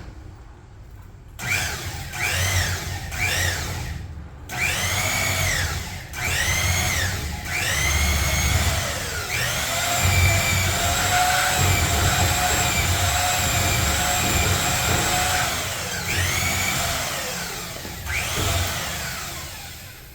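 Power drill driving a wire stripper, triggered in short bursts, each one a whine that spins up and falls away, then held at steady speed for about six seconds before a few more short bursts near the end.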